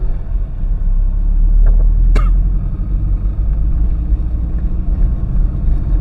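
Steady low rumble of road and engine noise inside a car cabin while driving. A brief sharp sound cuts through about two seconds in.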